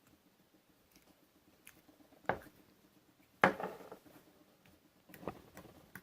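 Soft blue slime being squeezed and stretched by hand, giving three wet pops, the loudest about halfway through, among faint small clicks.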